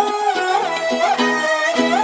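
Background music: an instrumental passage of a Tamil song, a held, ornamented melody over a repeating plucked accompaniment.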